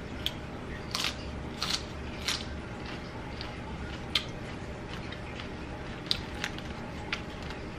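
A person chewing crispy fried chicken, with several short crunches and clicks spread out over a steady low hum.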